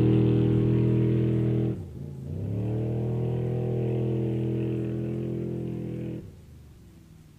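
Off-road race vehicle's engine running hard at steady high revs as it pulls away down the course; the pitch dips about two seconds in and climbs back, as at a gear change or lift over a bump, then the sound drops away suddenly about six seconds in.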